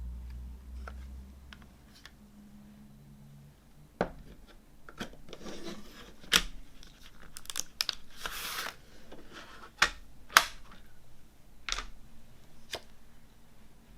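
Hands unwrapping a CD: plastic wrap tearing and crinkling in two longer stretches, mixed with a string of sharp clicks and taps of the packaging being handled.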